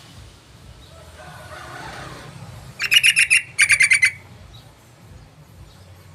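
Yellow-vented bulbul (trucukan) call: two quick bursts of rapid chattering notes, each about half a second long, a little past the middle.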